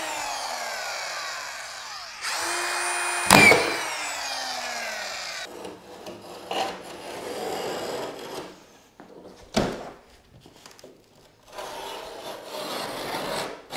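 Cordless drywall screw gun driving 1-inch fine-thread drywall screws through drywall into a light-gauge steel stud: the motor whine winds down from one screw, runs up again about two seconds in, gives a sharp click as the screw seats and winds down again. After that the drywall board is handled and scraped against the stud, with one knock about halfway through.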